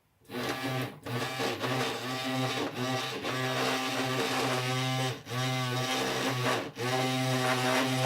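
Panasonic ES-SL41 electric shaver running on a newly fitted NiMH battery, a steady motor buzz that dips briefly several times.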